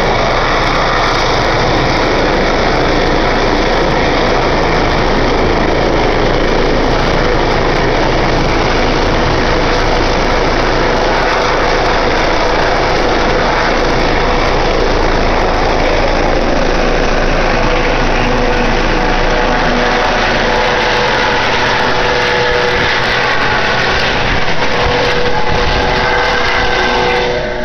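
Medevac helicopter with a ducted (fenestron) tail rotor, its turbine engines and rotor running at take-off power as it lifts off and climbs overhead. A loud, steady rush of rotor and engine noise, with whining tones standing out more in the second half; it starts to fade right at the end.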